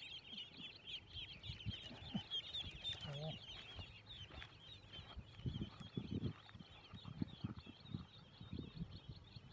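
Many ducklings peeping rapidly and without pause, a dense chorus of short, high, falling peeps. Low dull thuds join in about five seconds in as the basket is carried away.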